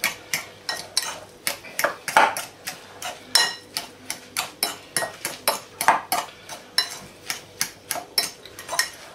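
Utensil stirring mashed broccoli and onion in a ceramic bowl, clinking and scraping against the bowl's side about three times a second.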